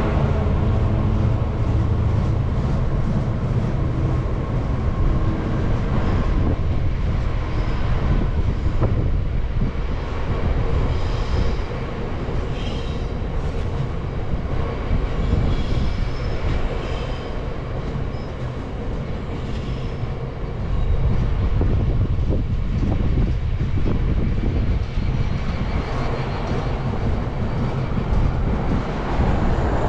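A diesel-hauled freight train running past, its wagons rumbling continuously along the track. A locomotive's engine note is heard at the start, and a faint high wheel squeal comes in the middle.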